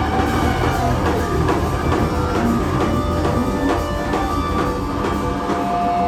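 Live rock band playing: drum kit keeping a steady beat under electric guitar, bass guitar and keyboards.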